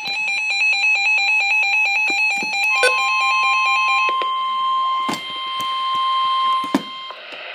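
NOAA Weather Radio alert tones. A rapidly warbling electronic alarm beeps for about the first four seconds. From about three seconds in, the steady single-pitch 1050 Hz warning alarm tone sounds and cuts off near the end, with a few sharp clicks along the way.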